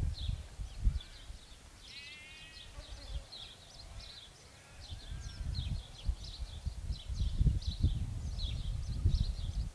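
Gusty wind rumbling on the microphone, strongest in the second half, over small birds chirping in quick short calls. About two seconds in, a sheep gives one short, faint bleat.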